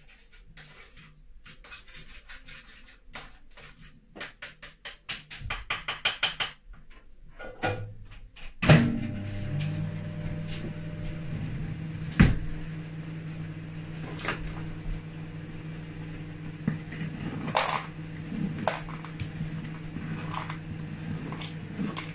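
Microwave oven started with a clunk about nine seconds in, then running with a steady low hum as it melts butter. Before it starts there is a run of quick clicks, and a few light knocks sound over the hum.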